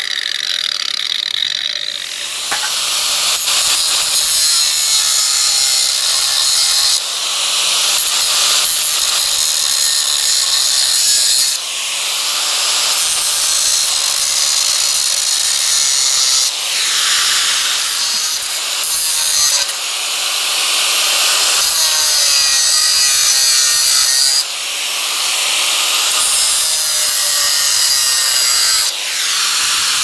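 Angle grinder with a thin cutting disc cutting through the metal casing of a microwave magnetron, a loud, steady, high grinding. The sound changes suddenly every few seconds.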